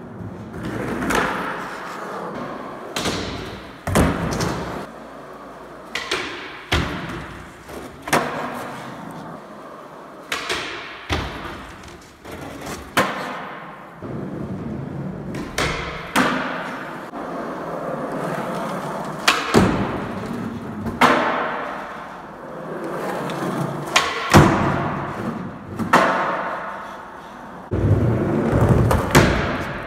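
Skateboard rolling on the park's wooden ramps and concrete floor, with repeated sharp pops of the board and slapping landings every second or two as nollie tricks are tried.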